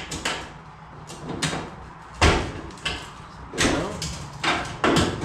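Irregular knocks and clunks of stamped sheet-metal dryer parts being handled and shifted, about seven in all, the loudest about two seconds in.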